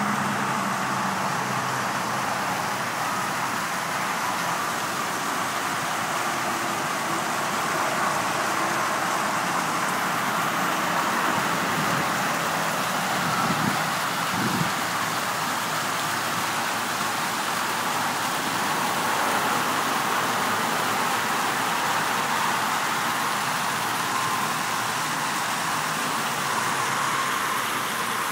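Steady rushing, splashing water.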